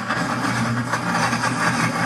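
Pampered Chef Deluxe Cooking Blender running loud and steady on its grind setting, its motor churning honey roasted peanuts into peanut butter while the tamper keeps the nuts moving toward the blades. Brief irregular clicks come through the steady motor noise.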